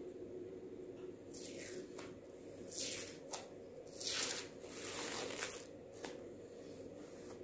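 Adhesive Vestige detox foot patch being peeled off the sole of a bare foot: several short tearing, rustling sounds over about four seconds, with a few light clicks, over a steady low hum.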